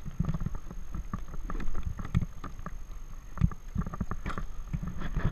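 A sit-on-top kayak being paddled: water splashing and slapping against the hull in irregular knocks, over a low rumble of wind on the microphone.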